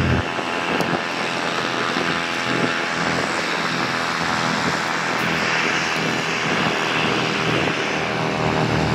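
Rolls-Royce BR710 turbofan engines of a Bombardier Global 5000 business jet taxiing at low power: a steady jet whine and hiss.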